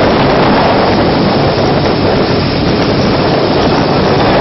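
Boats running at speed on open water: a steady engine drone under rushing water and spray, with heavy wind noise on the microphone.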